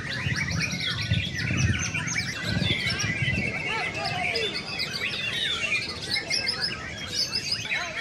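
Several caged white-rumped shamas singing at once, a dense tangle of overlapping whistles and quick chirps, over a low background murmur.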